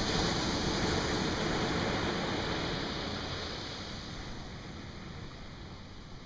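Ocean surf: a small wave breaks close to shore, and its wash hisses and slowly fades over the next few seconds.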